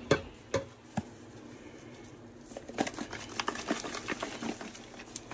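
Spice containers being handled and shaken out: a few sharp clicks in the first second, then a run of light ticks and taps from about two and a half seconds in.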